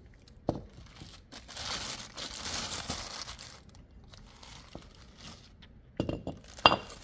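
Packaging crinkling and tearing as a new wheel hub assembly is unwrapped, in stretches of rustling, with a sharp knock about half a second in and two more near the end.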